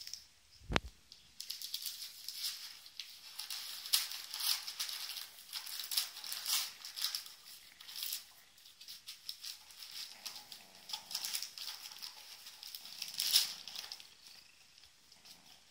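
A dog chewing and tearing at a white paper packet: paper crinkling and rustling in quick, irregular crackles. There is one sharp click near the start.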